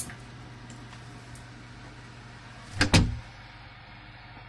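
Door closing under a homemade parallel-mount door closer and shutting with a loud double knock as it latches, about three seconds in. A steady low hum runs underneath.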